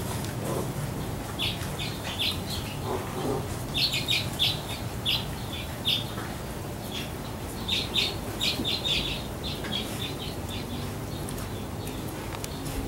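Small birds chirping in quick runs of short, high chirps, over a steady low hum.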